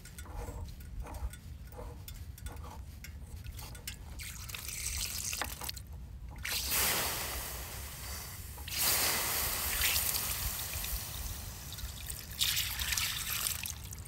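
Water rushing and gurgling out of a portable water pump's casing as its plug is worked out by hand. Faint clicks of the plug turning come first, then the rush starts about halfway through and comes in surges.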